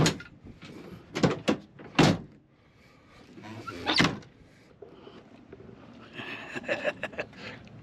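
A few knocks and clunks, then a loud slam about four seconds in as a pickup truck cap's rear glass hatch is shut.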